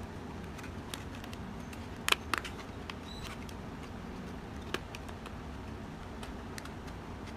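Light handling noise of a cardboard truck cab being turned and fitted over a chassis by hand: a few short clicks and taps, a cluster about two seconds in and one more near five seconds, over a steady low hiss.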